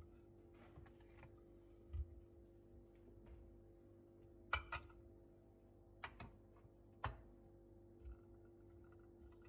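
Scattered light clicks and knocks of objects being handled on a countertop, the sharpest a quick pair about halfway through, over a faint steady hum.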